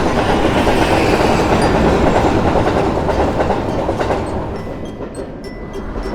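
A train passing, a steady rumble of wheels on rails with clickety-clack, easing off about five seconds in.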